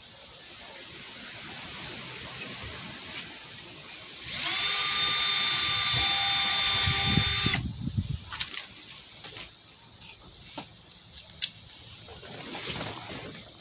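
Cordless drill running at a steady speed for about three seconds, a high whine, then a few light clicks and knocks of handling.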